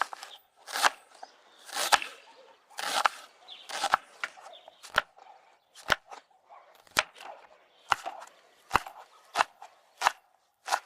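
Kitchen knife chopping red onion and greens on a cutting board: sharp strokes about once a second, quickening near the end.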